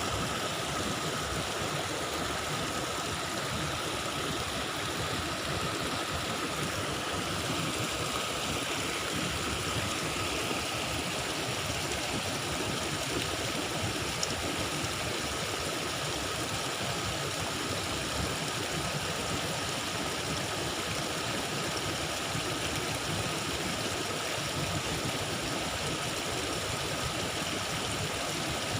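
Fast-flowing water of a flood-swollen stream, a steady rush.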